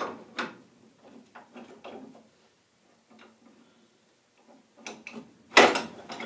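Metal clinks and clanks of a wrench working on a steel gas pipe union as it is fitted and tightened, with a few quiet clicks and then a quick run of louder clanks near the end.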